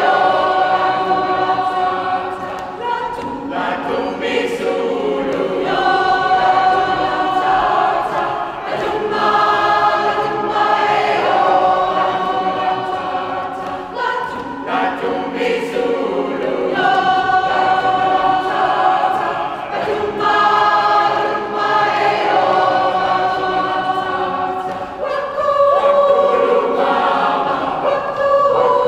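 Large community choir of mixed voices, mostly women, singing in harmony in a cathedral, in long held phrases with short breaks between them.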